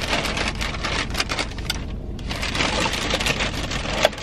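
Plastic takeout carrier bag rustling and crinkling as hands dig through it, with a brief lull about two seconds in.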